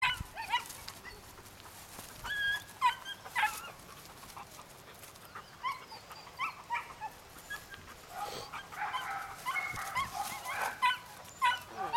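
Weimaraner puppy giving short, high yips and whimpers in scattered bursts, coming more often near the end.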